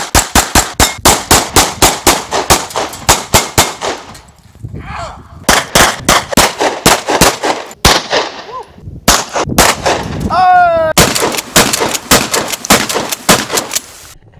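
Gunfire from handguns and a shotgun, in rapid strings of several shots a second with short pauses between the strings.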